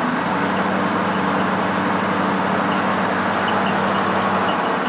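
1971 Ford pickup truck driving at low road speed, heard from inside the cab: a steady engine hum under constant road and wind noise. The engine tone dips slightly just after the start.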